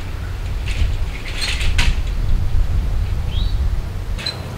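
Outdoor sounds: a few light clattering knocks in the first two seconds, then a short rising bird chirp past the middle and another brief chirp near the end, over a steady low rumble.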